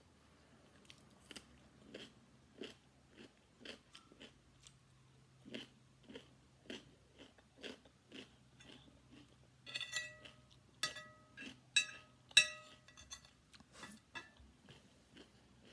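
Close-up chewing of raw cucumber, a crisp crunch about twice a second. About ten seconds in come a few louder, sharper crunches with a short ringing note, the loudest a little after twelve seconds.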